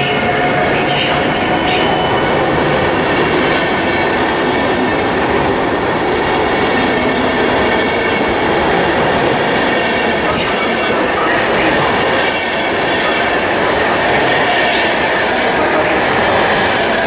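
Passenger train coaches rolling past close by: a steady rumble of wheels on rail, with faint high wheel squeal.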